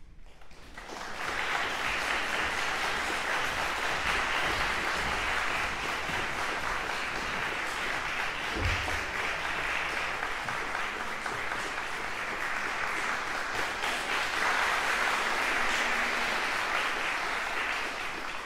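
Concert hall audience applauding steadily. The applause swells in about a second in and eases off near the end, with a single low thump about halfway through.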